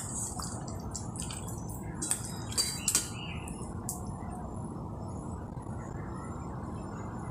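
Wet squishing and slapping of marinated chicken pieces being turned by hand in a stainless steel bowl: several short, sharp sounds in the first three seconds or so, then they stop. A steady low hum runs underneath throughout.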